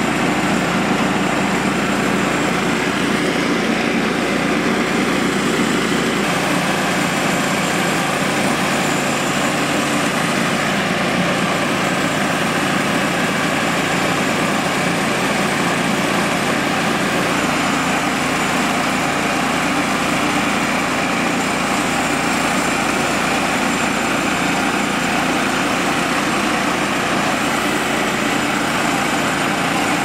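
Woodland Mills band sawmill's gasoline engine running steadily at throttle while its band blade cuts lengthwise through a log.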